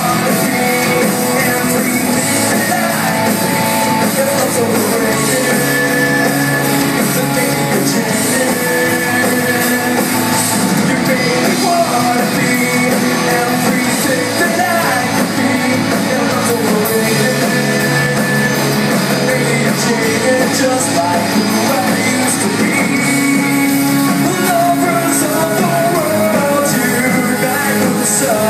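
Live rock band playing a song through a PA, loud and continuous, with a voice or lead melody wavering over a steady bass line.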